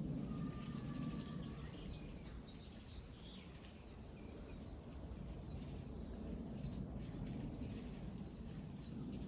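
Small birds chirping, with many short high falling calls scattered throughout, over a low steady background rumble.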